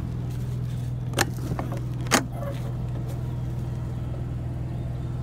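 Two sharp clicks about a second apart, the second louder, from an RV's exterior storage compartment door and latch being worked. Under them runs a steady low motor hum.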